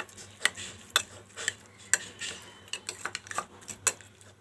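A spoon clinking and scraping against a bowl in short, sharp knocks, about two a second, while raw prawns are stirred with salt and turmeric.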